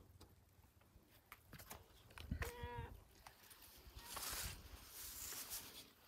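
A single short animal call with a wavering pitch, lasting about half a second, comes about two and a half seconds in. A soft rustle follows a little later.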